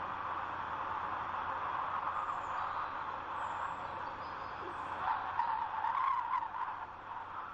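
Steady wind with a few faint, high bird chirps. About five seconds in, a louder wavering sound rises over the wind for about a second and a half, then fades.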